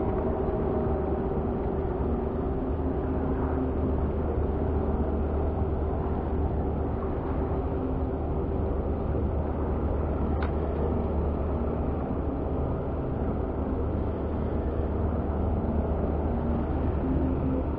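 Steady low engine drone with a constant hum, unchanging throughout, with a single faint tick about ten seconds in.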